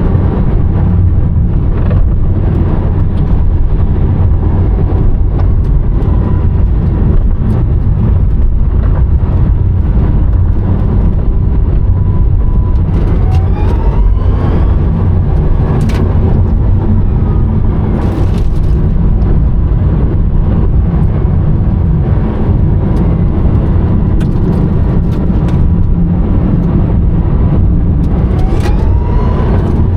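Rimac Nevera four-motor electric hypercar heard from inside the cabin while driving: a loud, steady rumble of road and tyre noise. The electric motors' whine rises in pitch briefly about halfway through and again near the end.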